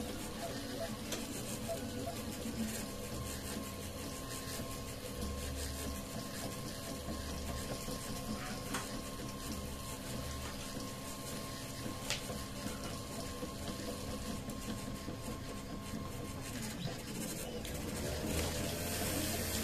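Homemade 3D printer printing: its stepper motors whine in several steady tones, and the pattern shifts every second or so as the print head changes moves.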